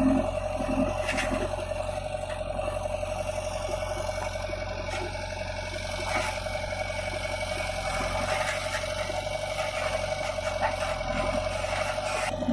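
JCB 3DX backhoe loader's diesel engine running steadily under work, with a few faint knocks.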